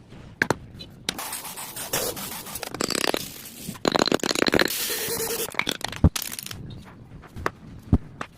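Wood being worked by hand tools: long stretches of scraping noise, broken by a few sharp knocks, the clearest about six seconds in and near eight seconds.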